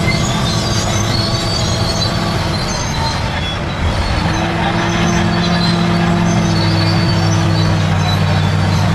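Bulldozer's diesel engine running under load, with high squeaks from the steel tracks. About four seconds in, the engine note steps up a little and holds steadier.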